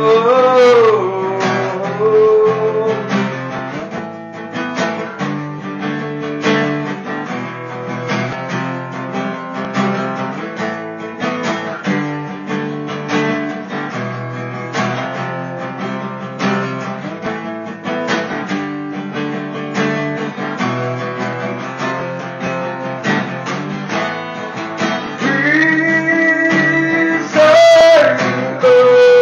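Acoustic guitar strummed and picked in a slow song. A man's voice finishes a sung line in the first couple of seconds, the guitar carries on alone, and singing comes back near the end with a long held note.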